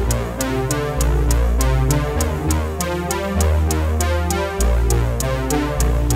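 Instrumental electronic hip-hop backing music with no vocals: a steady drum-machine beat with crisp hi-hats over sustained deep bass notes and synthesizer chords.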